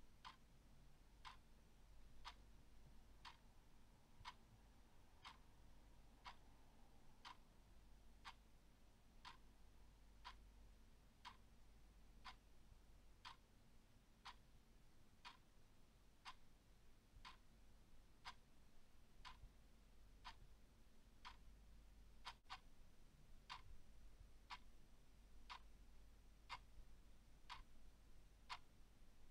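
Clock ticking steadily and faintly, about one tick a second.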